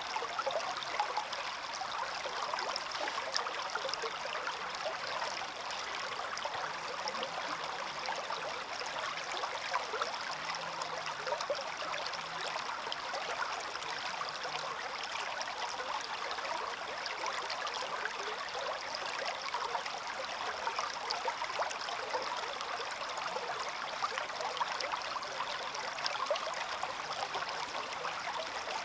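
Small stream running steadily, water trickling and babbling over stones.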